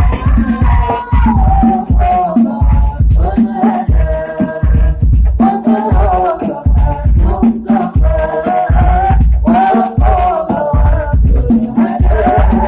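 Music: a sung melody over steady, repeated drum beats and rattling percussion.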